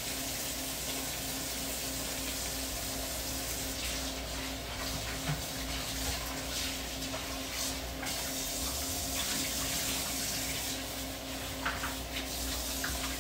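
Kitchen faucet running steadily into a sink while chicken pieces are rinsed under it, with a few light clatters near the end.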